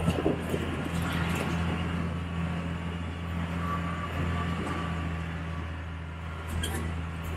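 Tour bus engine running with a steady low drone, over an even hiss of road noise.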